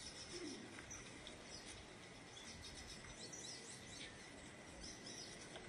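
Near silence: faint steady background hiss with a few faint, short high chirps about three seconds in and again near the end.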